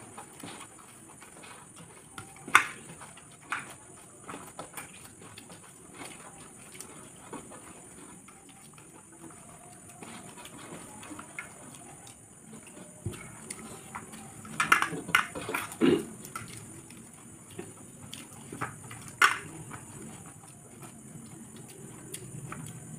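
Fast eating by hand: scattered short smacks, chewing and wet mouth sounds, and fingers working rice on steel plates, over a faint steady hiss. A cluster of louder short sounds comes about two-thirds of the way through.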